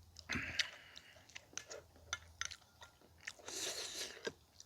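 A person chewing and gnawing boiled pig's trotters, with soft wet mouth clicks and a couple of brief breathy stretches.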